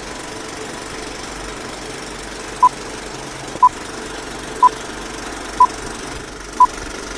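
Old-film countdown leader sound effect: a steady film-projector rattle with a short beep once a second as the numbers count down, five beeps starting about two and a half seconds in.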